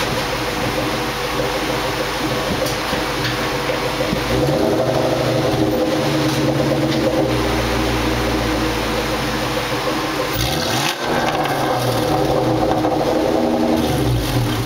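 Supercharged Ford SVT V8 running, growing louder about four seconds in, with a brief dip and pitch glide around eleven seconds. Wind buffets the microphone.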